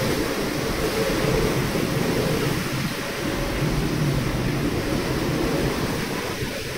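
Wind of about 40 knots buffeting the microphone in a steady, heavy rush, over the wash of breaking seas along a sailing yacht's hull.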